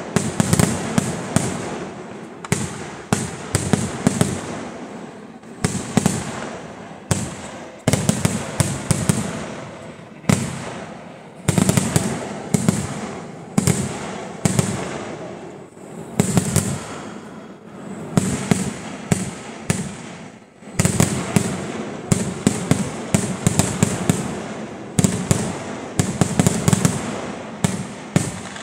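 Fireworks barrage: a dense, continuous run of sharp firework cracks and bangs, coming in waves with brief lulls every few seconds.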